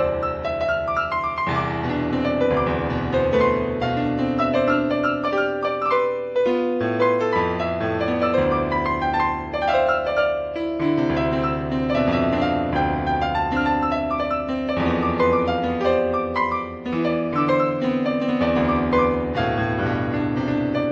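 Background piano music: steady chords and a melody, with a new chord about every second or two.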